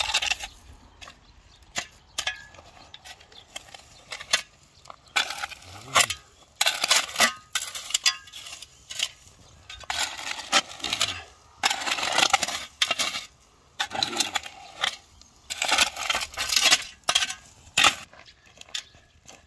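Steel shovel blade scraping and chopping into dry, stony soil as earth is shovelled back into a planting hole, with grit and pebbles rattling off the blade. The sound is a run of irregular scrapes and clinks that dies away shortly before the end.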